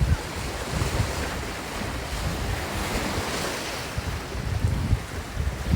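Wind buffeting the microphone in uneven low gusts over a steady rushing hiss like surf.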